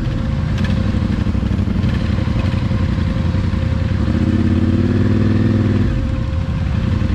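ATV engine running under load on a muddy trail, revving up and easing back down about two-thirds of the way through.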